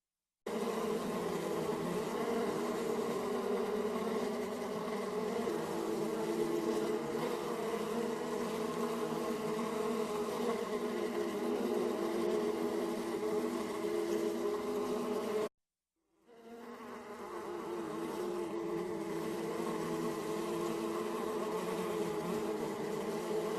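Bees buzzing in a steady, dense drone. It cuts out for about half a second around fifteen seconds in and fades back up.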